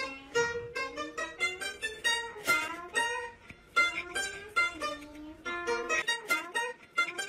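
Pipa (Chinese lute) being plucked: a melody of single plucked notes, about three to four a second, each ringing briefly and fading.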